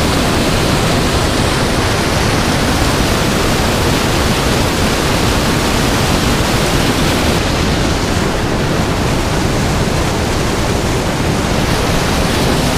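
Loud, steady rush of churning whitewater pouring out at the foot of a dam spillway.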